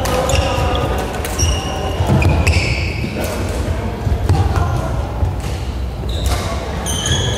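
Badminton rally in a large echoing sports hall: several sharp cracks of rackets hitting the shuttlecock, with sneakers squeaking on the court floor and voices chattering in the background.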